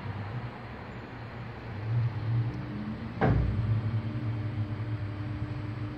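Glass-door station lift working: a steady low mechanical hum with a second tone joining about two seconds in, and one sharp clunk just past three seconds.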